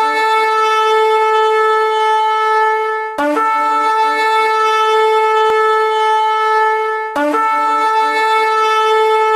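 Long held horn blasts, one after another: a new blast starts about three seconds in and another about seven seconds in, each opening with a short lower note that leaps up to a long steady tone.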